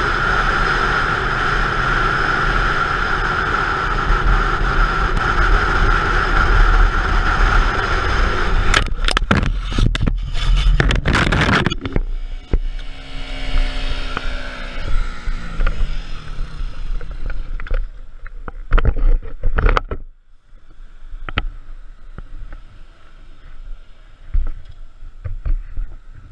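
A KTM Duke motorcycle riding fast, with a steady rush of wind and engine noise, then crashing about nine seconds in: a run of sharp impacts and scraping over about three seconds. The engine then runs on with a falling pitch for a few seconds, giving way to quieter scattered knocks.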